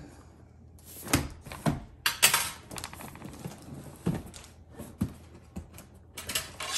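Large cardboard shipping box being handled: irregular knocks and scrapes as it is set down and turned, and fingers pick at its edge and tape. The sharpest knock comes about two seconds in.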